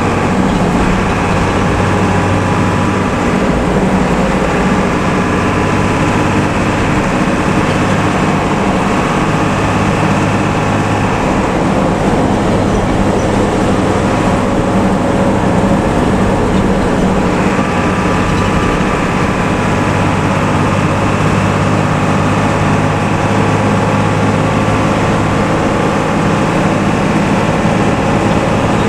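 Heavy diesel vehicle engine running steadily through a loud modified 'ngorok' exhaust with a deep drone. It eases off about twelve seconds in and builds again around seventeen seconds.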